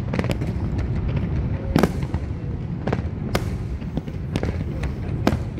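Aerial fireworks shells bursting overhead: a string of sharp bangs, the loudest about two seconds in, over a steady low rumble.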